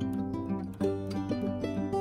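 Background music played on plucked strings, notes picked one after another in a lively run.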